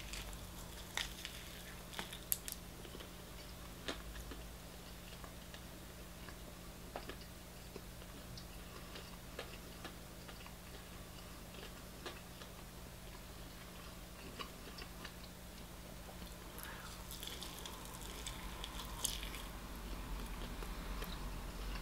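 A person biting and chewing a fried chicken leg, close to the microphone: irregular small crunches and wet mouth clicks, with a busier stretch of crackling near the end, over a steady low hum.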